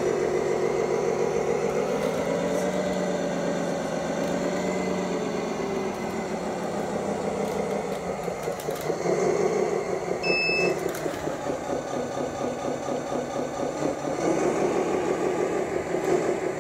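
Tamiya King Hauler RC dump truck's simulated diesel engine sound from its sound unit, idling and revving up and down in pitch several times as the truck drives. A short beep about ten seconds in.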